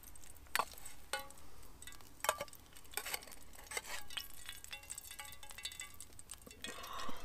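Metal tongs clicking and scraping against a small metal frying pan as slices of square sausage are lifted out of the oil, a string of irregular sharp clinks.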